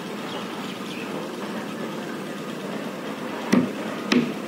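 Two sharp thumps about half a second apart near the end, from bare feet stepping on plywood shuttering formwork panels, over a steady background rumble.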